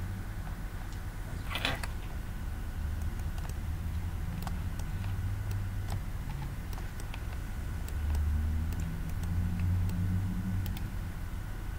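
Scattered computer mouse clicks over a steady low room rumble, with one short scraping rustle about a second and a half in.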